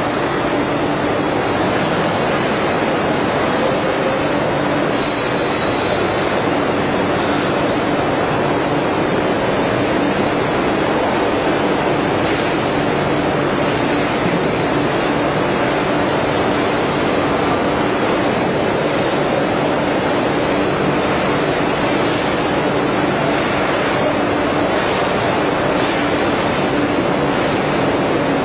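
Veneer splicer machine running steadily, a constant mechanical noise with a steady hum and brief higher-pitched bursts now and then.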